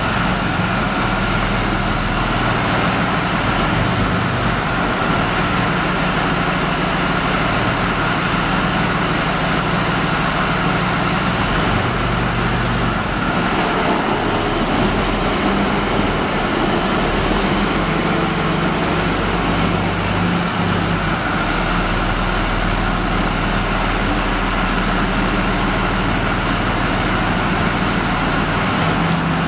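Leopard 2A4 tank's V12 diesel engine running loudly and steadily as the tank manoeuvres slowly inside a large hall. A steady high whine rides over the engine note.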